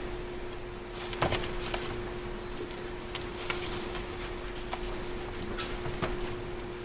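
Kittens scrambling and playing on an absorbent pad in a wire cage: scattered rustles, scratches and light patters of small paws and crumpled pad, the sharpest about a second in. A steady low hum runs underneath.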